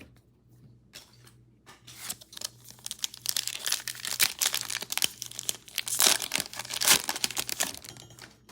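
A trading card pack's plastic wrapper being torn open and crinkled by hand, a dense crackling that builds after about two seconds and is loudest near the end.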